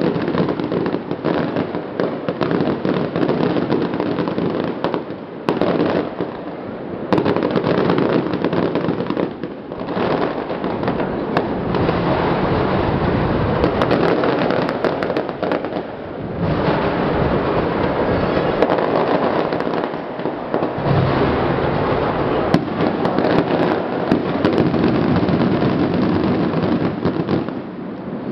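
Fireworks crackling and popping in a dense, almost unbroken stream, with a few brief lulls.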